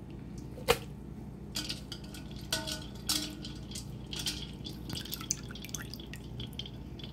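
Water dripping and splashing in a stainless steel bowl as handfuls of blanched spinach are lifted out of ice water and squeezed, with scattered small ticks. A single sharp tap a little under a second in is the loudest sound.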